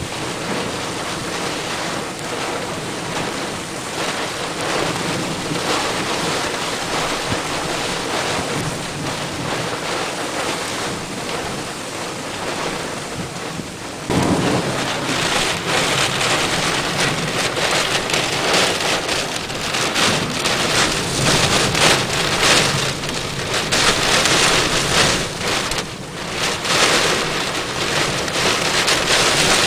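Heavy rain during a thunderstorm, falling steadily. About halfway through it suddenly grows louder and stays heavier, surging up and down.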